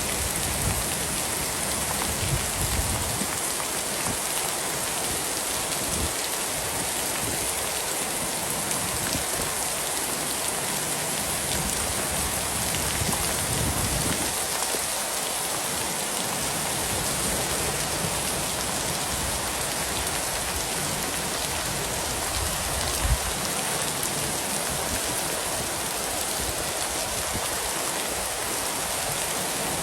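Heavy downpour: dense, steady rain pouring down without letup, with one brief tap about three quarters of the way through.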